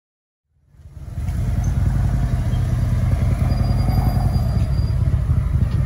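Motorcycle running on the road: a steady low rumble that fades in from silence within the first second and then holds.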